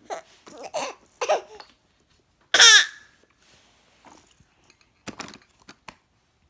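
Baby babbling in short bursts, then one loud high-pitched squeal that falls in pitch about two and a half seconds in. A few short clicks come near the end.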